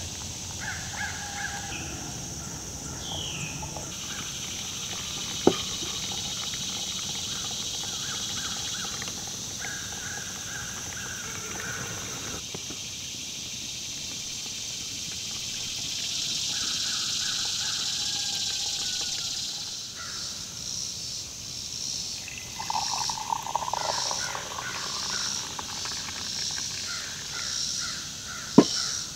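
Woodland ambience: a steady high insect drone with birds calling over it, and hot water poured from an enamel kettle into a glass pour-over coffee maker. There are two sharp clinks of kitchenware on the wooden table, about five seconds in and near the end.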